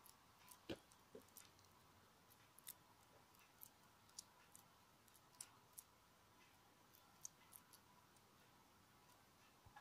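Faint, scattered light clicks and taps of a steel spoon against a steel plate while spreading a cauliflower filling on rolled dough, over a faint steady hum.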